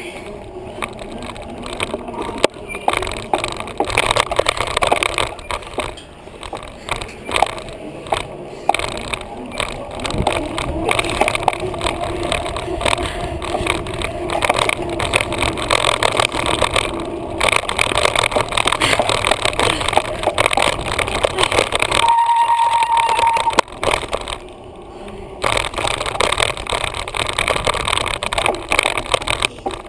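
Bicycle being ridden, heard from a camera in a homemade mount on the bike: a continuous rumble with constant rattling and clicks. A brief steady tone sounds about three-quarters of the way through.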